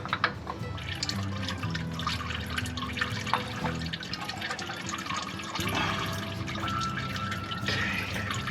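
Used engine oil pouring from the drain hole and splashing into a drain pan, with scattered light clicks and taps.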